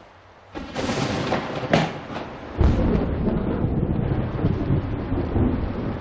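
Thunderstorm: a thunder crack breaks out about half a second in, another sharp crack comes near two seconds, and then a long, heavy rumble of thunder rolls on over rain.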